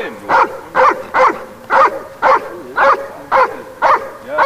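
Young Dobermann barking steadily on the leash, about two barks a second, worked up during bite-training agitation.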